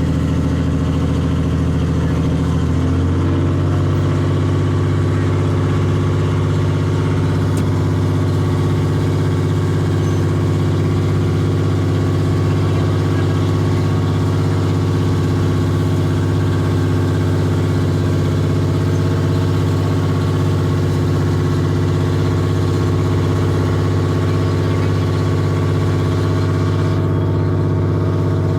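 Engine running steadily throughout, a low drone with its pitch stepping up slightly about three seconds in.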